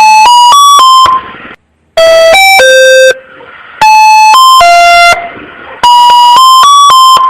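Emergency-alert alarm tone: loud electronic chime phrases of four or five short notes, some running upward in pitch, repeated about every two seconds with a short echoing tail after each phrase.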